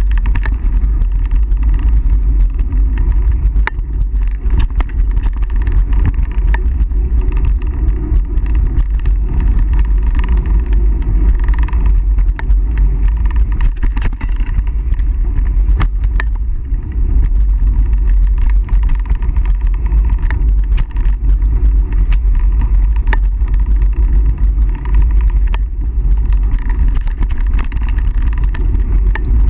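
Wind buffeting the microphone and the rumble of mountain bike tyres rolling fast over a dirt singletrack, with frequent knocks and rattles as the bike goes over rough ground.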